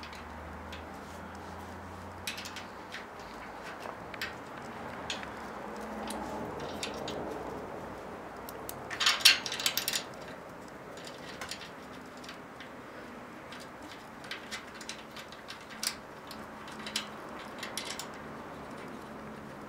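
Small metal clicks and scrapes of nuts and bolts being worked by hand on a metal chain-tensioner bracket, scattered through, with a louder clatter of clicks about nine seconds in.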